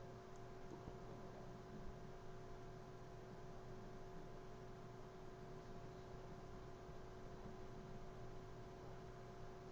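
Faint steady electrical hum over low room noise, with no distinct events.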